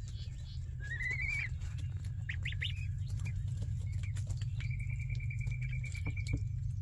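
Week-old ducklings and goslings peeping over a steady low hum. There is a rising, wavering call about a second in, then a few short peeps, then one long trilled peep held on a single pitch near the end, with scattered faint clicks throughout.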